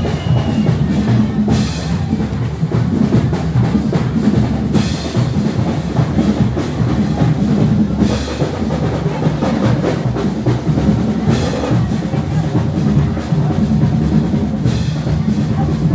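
Marching drums playing a steady beat, with bass drum and a cymbal crash about every three seconds.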